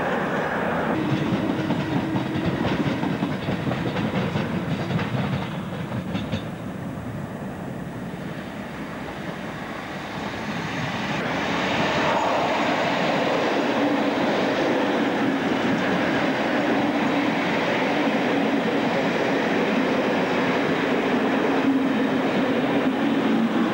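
Trains running through the station. One fades away over the first several seconds. Then a slam-door electric multiple unit approaches from about ten seconds in and runs past close by, loud and steady over a low steady hum.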